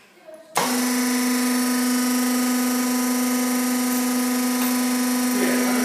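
Hydraulic hose crimper's electric motor and hydraulic pump switching on about half a second in and running with a steady hum.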